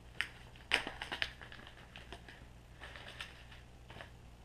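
Small resealable plastic bag crinkling and rustling as it is opened and handled, in scattered short crackles with a few sharper clicks, the loudest a little under a second in.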